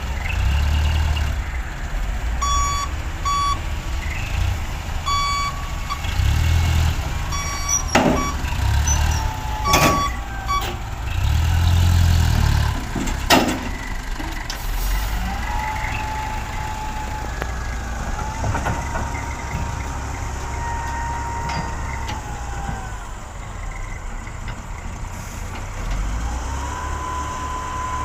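Diesel engines of a tipping dump truck and a wheel loader running, swelling louder several times, with a reversing alarm beeping in short bursts during the first ten seconds and a few sharp knocks.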